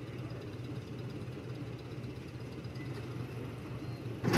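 Vintage tractor engine running slowly with a steady low rumble as it inches along a seesaw beam. Just before the end there is a sudden loud thump as the beam tips down onto its other end.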